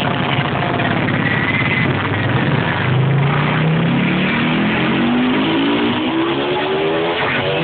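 Loud electronic house music played over a club sound system, heard through a phone's microphone: the track's build-up, with a buzzy synth that begins about two and a half seconds in and rises steadily in pitch.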